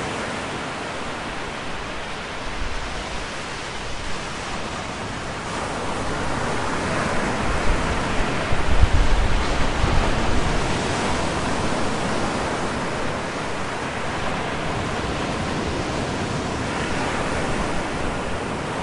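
Ocean surf breaking on a rocky shore: a continuous rush of water that swells about halfway through, with a deeper rumble as a big wave breaks, then settles back to a steady wash.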